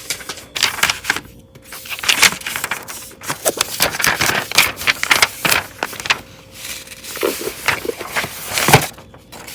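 Rustling, crinkling and scraping of a new hardcover journal and its packaging being handled close up: dense, irregular strokes with a sharp one near the end.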